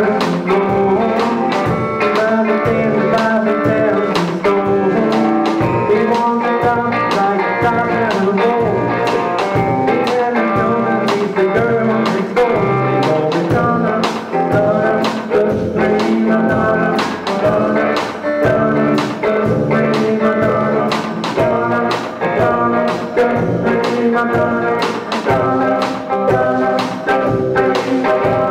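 Rock-and-roll band playing an instrumental passage: electric guitar over a steady drum beat, recorded on a phone.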